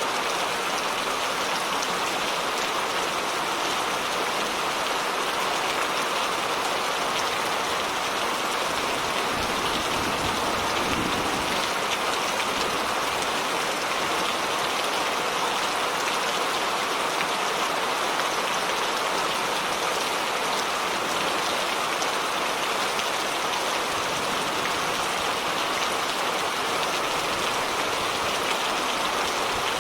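Steady rain falling in a dense, even patter, with a brief low rumble about ten seconds in.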